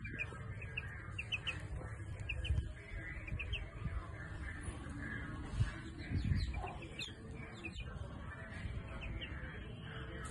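Gamefowl chicks peeping: short, high, falling chirps in quick runs, over a steady low rumble with a couple of soft knocks.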